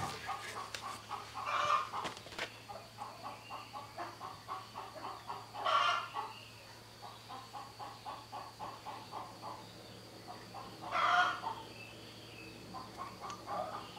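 Chickens clucking in a steady run of short clucks, about four a second, with a louder call three times, roughly two, six and eleven seconds in.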